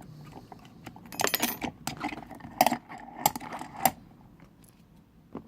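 Metal clinks and rattles as a Corbin half-cylinder lock is loosened and lifted out of a bench vise. A cluster of rattling clicks comes about a second in, then three sharp single clinks follow about a second apart.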